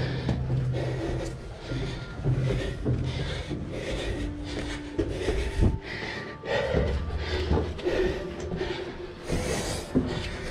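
Rubbing and scraping of clothing and gloved hands against rough concrete and the body-worn camera, with repeated small knocks, while climbing up a ladder out of a narrow shaft.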